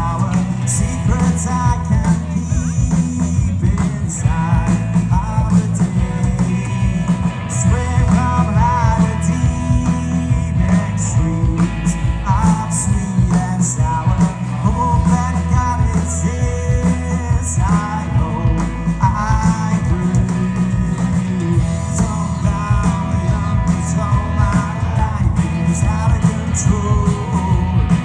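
Live rock band playing a song, with a steady drum beat, a heavy bass line and a bending melody line on top.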